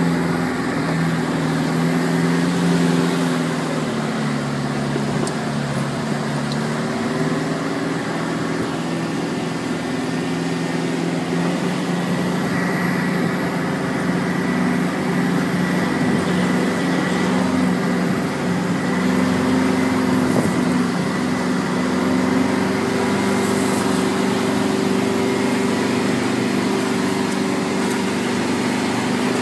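A four-wheel-drive vehicle's engine running steadily as it drives, its pitch rising and falling a little in the first few seconds and then holding even. A thin, steady high whine runs alongside it.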